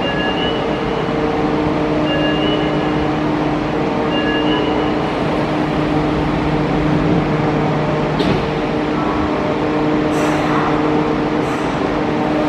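Kobe subway 5000-series electric train standing at the platform, its onboard equipment humming steadily. A two-note electronic chime repeats every couple of seconds during the first few seconds. The doors close with a knock about eight seconds in, followed by short hisses about ten and eleven seconds in.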